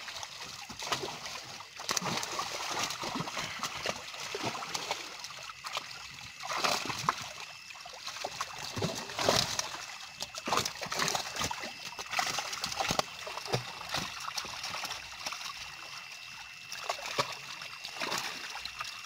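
Water splashing and sloshing in irregular bursts as fish thrash inside a net being gathered by hand in shallow water. A faint steady high tone runs underneath.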